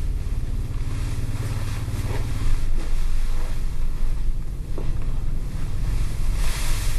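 Low, steady rumbling drone of a dark ambient film score, with a few faint small knocks and a brief rising hiss near the end.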